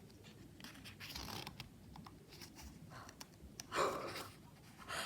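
Photo book pages being turned and handled: soft paper rustles and light taps, with a louder rustle about four seconds in.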